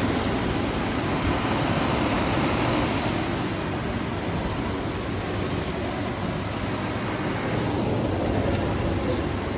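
Portable dehumidifier running, its fan giving a steady rush of air noise with a faint low hum underneath.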